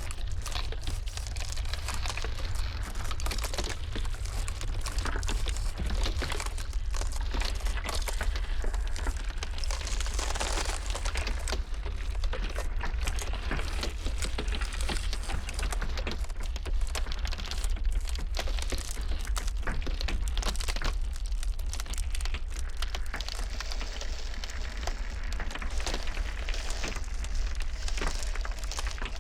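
Ice crackling and cracking in a dense, continuous stream of small snaps over a steady low wind rumble.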